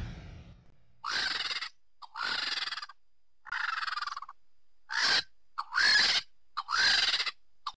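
Vulture calling: a series of about six hoarse calls, each under a second long and coming roughly once a second, the later ones shorter, with short clicks between them.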